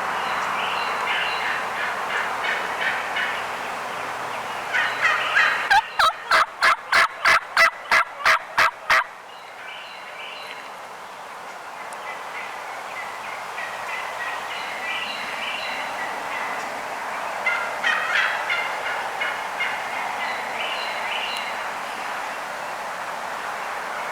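Turkeys yelping: repeated hen-style calls throughout, with a loud, close run of about a dozen evenly spaced yelps, three or four a second, starting about six seconds in.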